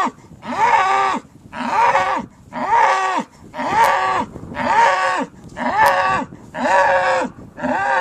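Cattle bawling over and over, about one call a second, each call rising and then falling in pitch.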